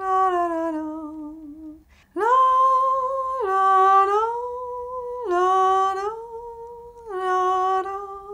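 A woman singing a slow, wordless "la-la" tune alone, with no accompaniment. She holds long notes that step down in pitch, with a short breath break about two seconds in.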